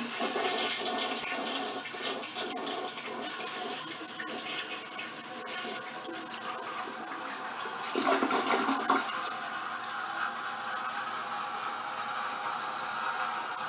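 Toilet flushing: water rushing down through the bowl, with a louder surge about eight seconds in, then a steadier hiss as the tank refills through its fill valve.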